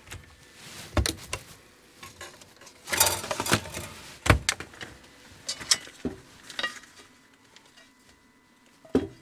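Kitchen cabinet door and dishes: a series of knocks and clatters as a plate is taken from an overhead cupboard and the door shut, with one loud knock just after four seconds. Then lighter scrapes and knocks from a cast-iron pot and wooden spoon as cooked sausage is tipped onto the plate.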